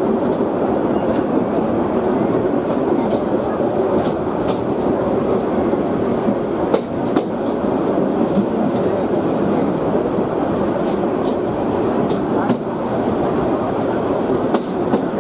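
Train running on the track: a steady rumble with irregular sharp clicks of the wheels over the rails.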